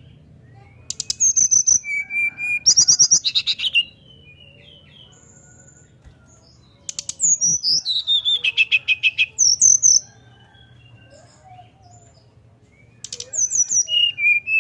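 Brown-chested jungle flycatcher singing a whistled, flute-like song in three bursts of about three seconds each, with short pauses between. Each burst mixes a rapid stutter of notes with clear whistles falling in pitch, and the third starts near the end.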